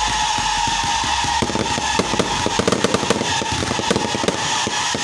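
Fireworks going off in a dense, rapid crackle of small bangs, with a steady high tone running underneath.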